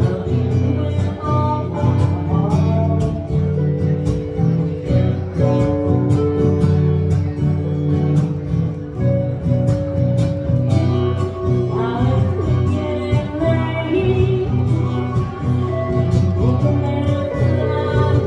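Live acoustic band playing a song: strummed acoustic guitars with women singing.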